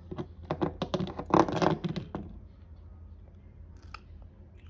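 Thin metal tear strip of a key-opened tin can crackling and clicking as the last bit is wound off with a can key, freeing the lid. The crackle comes in quick irregular runs for about two seconds, then stops, with one faint click near the end.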